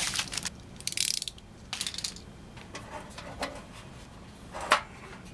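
Small assembly hardware and tools being pulled off a cardboard carrier backing: scattered clicks, rattles and short scrapes, with one sharp click near the end.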